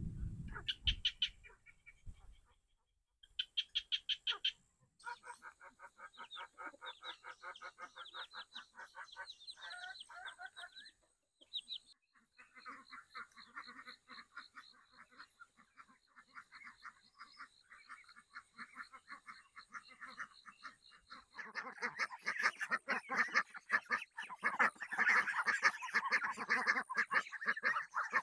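A flock of domestic ducks quacking, rapid repeated calls that swell into a loud, dense chorus in the last third. There is a brief low rumble at the very start.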